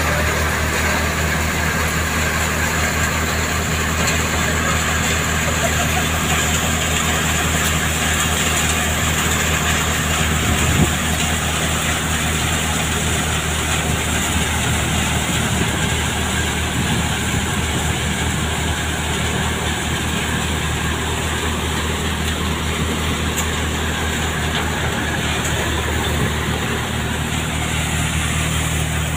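Tractor-driven cutter thresher running: a steady low engine hum under dense, even machine noise, with one brief knock about eleven seconds in.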